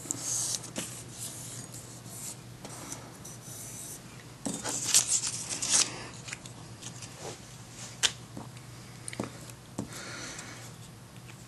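Glue stick rubbing over paper templates laid on aluminum plate, in irregular scraping strokes, with a few light clicks and knocks of handling.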